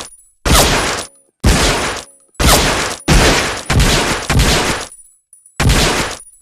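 M1911A1 .45 ACP pistol firing seven single shots, roughly one a second, coming quicker in the middle of the string, each with a short reverberant tail.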